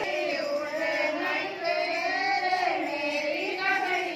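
Women singing together, a group of voices holding long, slowly wavering notes in a traditional folk song of the bhat ritual.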